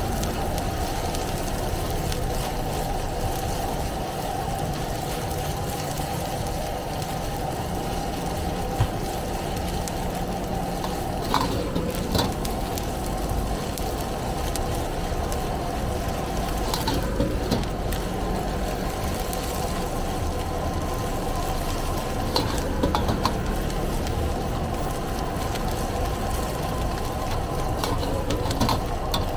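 A metal ladle stirring and scraping fried rice around a steel wok over a steadily running gas burner, with a few sharper clanks of the ladle against the wok.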